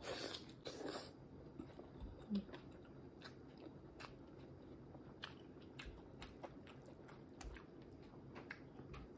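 Close-miked chewing of a mouthful of fried sunny-side-up egg: soft, wet mouth clicks and smacks, louder in the first second, then quieter chewing.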